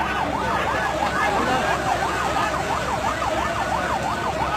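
Emergency vehicle siren on a fast rising-and-falling yelp, about three sweeps a second, over the noise of a large crowd.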